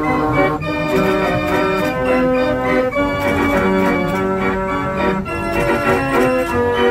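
Organ music: sustained chords that change every second or so.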